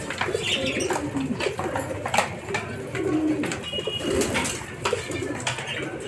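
Domestic pigeons cooing over and over in low, wavering coos, with sharp clicks of beaks pecking grain in a wooden feeder.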